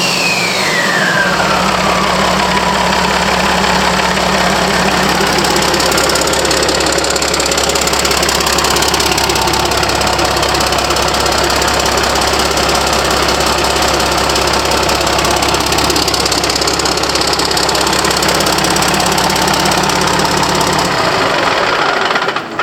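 Caterpillar 3406C inline-six diesel engine running steadily, with a high whine that falls in pitch over the first two or three seconds.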